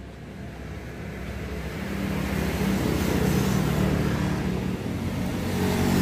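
A motor vehicle's engine running, a low hum that grows steadily louder from about two seconds in.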